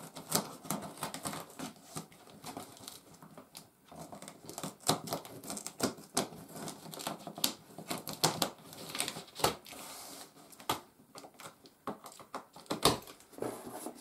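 Scissors cutting through packing tape along the seams of a cardboard box, with many irregular sharp snips and clicks and crackling of tape and cardboard. The cardboard flaps rustle as they are pulled open.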